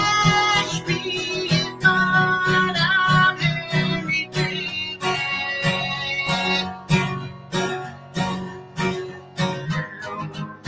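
Acoustic guitar strummed steadily, with ringing chords, in the middle of a song.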